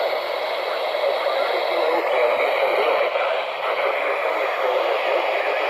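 Steady radio static hiss.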